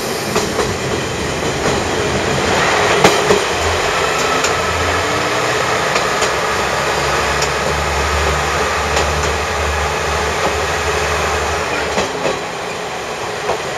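Diesel railcar running on the rails, a steady noise of engine and wheels with a few sharp clicks from the track. About three seconds in it enters a tunnel, and the sound grows louder with a deep rumble until it eases near the end.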